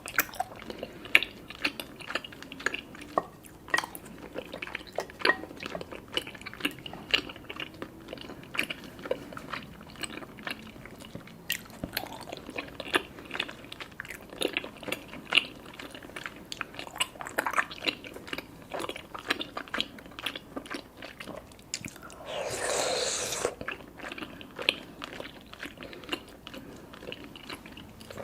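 Close-miked chewing of sticky, chewy black tapioca boba pearls, with many sharp wet mouth clicks. About twenty-two seconds in comes one slurp through a straw, lasting about a second and a half.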